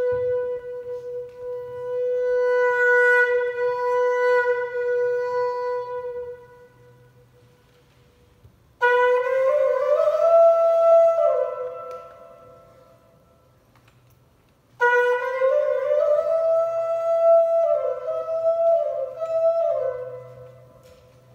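A solo wind instrument with a horn-like tone: one long held note that fades away, then two short phrases, each starting sharply and moving between a few nearby notes, with pauses between them.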